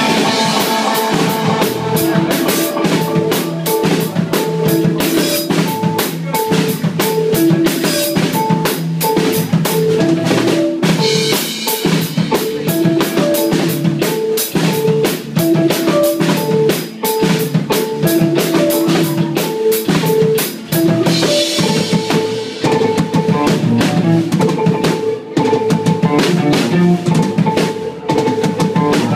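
A live rock band playing an instrumental passage: a drum kit beating busily with bass drum, snare and rimshots under a repeating guitar riff.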